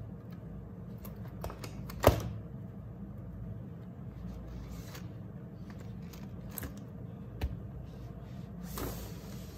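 A spiral-bound notebook being handled on a desk: its paper pages turned and rustled, with scattered light clicks. A sharp knock comes about two seconds in, a smaller one later, and a brushing sweep near the end.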